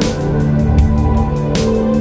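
Dark electronic ambient music: held synth tones over a low bass, a fast ticking beat, and a louder noisy hit about one and a half seconds in.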